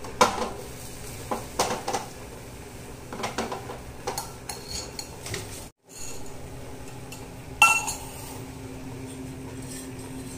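Metal utensil clinking and scraping against a frying pan, in scattered sharp strikes with the loudest about three-quarters of the way through, over a steady low hum.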